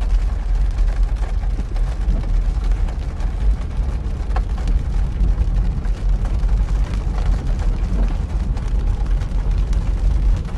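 Car driving through a flooded road in heavy rain, heard from inside the cabin: a steady low rumble of the car with the hiss of water and rain.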